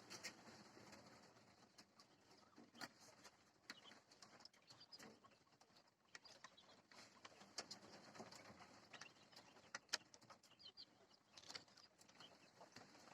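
Jumbo quail (Japanese quail) flock giving faint, short high calls, with scattered light clicks and taps.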